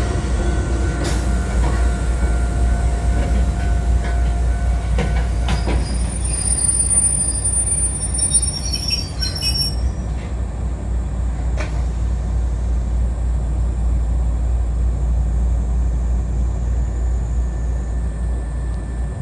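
Kotoden 1080- and 1100-series four-car electric train running with a steady low rumble of wheels on rail. The wheels squeal in high shrill tones from about six to ten seconds in, with a few sharp clicks, and the running then settles to a smoother rumble.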